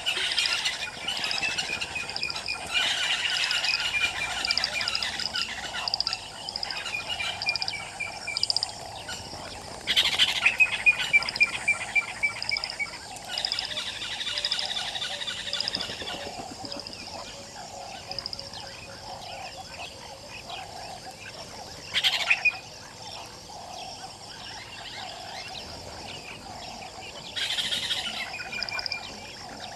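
Wild birds calling. One gives a quick descending run of notes several times, over a high steady trill and lower calls that repeat about once a second.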